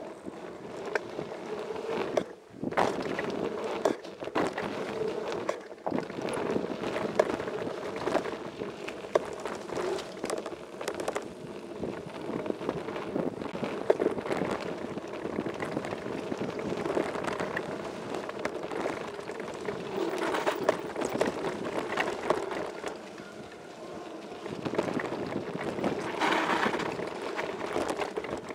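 Downhill mountain bike running fast over a dirt and gravel trail: a constant rumble of knobby tyres on loose ground, with frequent rattles and knocks from the bike and wind buffeting the microphone of a camera riding along.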